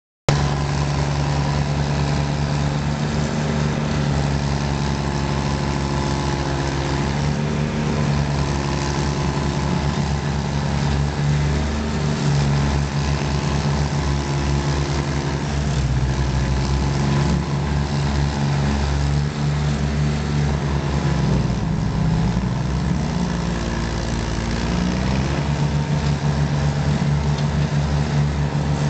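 Red Roo SP7015 stump grinder running at full throttle as its cutter wheel grinds into a large cypress stump. The engine note dips and recovers several times as the wheel bites into the wood and comes free.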